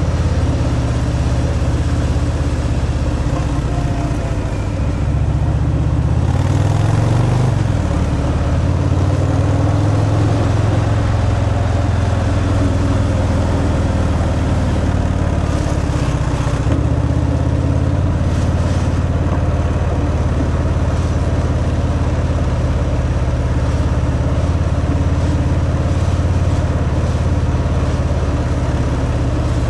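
Harley-Davidson Fat Boy's Milwaukee-Eight 114 V-twin running through its stock exhaust while riding, with a change in engine pitch about six to eight seconds in.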